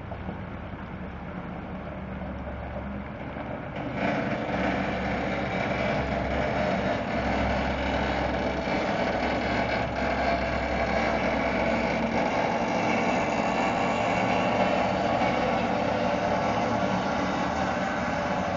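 Heavy-haul truck's diesel engine pulling a multi-axle lowboy trailer slowly past. It gets clearly louder about four seconds in and then stays steady.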